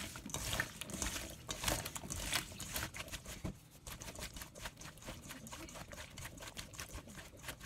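Hands mixing salted cubes of daikon radish in a stainless steel bowl: a rapid, uneven run of small clicks as the wet pieces knock against each other and the bowl, a little quieter after about three seconds.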